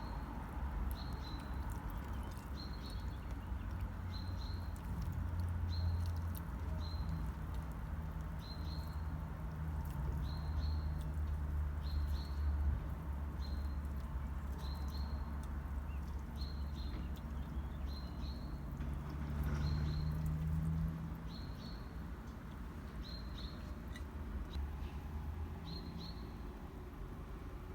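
A small bird chirping the same short, high note over and over, about once a second, over a steady low rumble.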